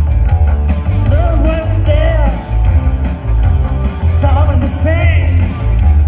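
Live rock band playing loudly through a PA: a heavy, pulsing bass and drum beat with a wavering melody line riding above it.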